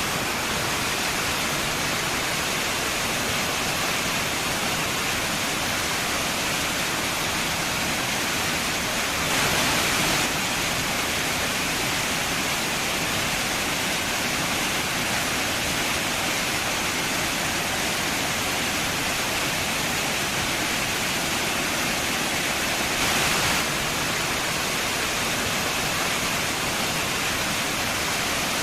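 Waterfall: a steady rush of falling water, briefly a little louder twice, once about a third of the way in and again near the end.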